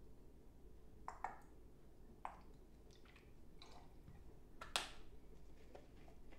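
Quiet bar-tool handling: a few light clicks and knocks of a small jigger, glassware and plastic bottles on the counter while simple syrup is measured and poured, the sharpest knock a little under five seconds in.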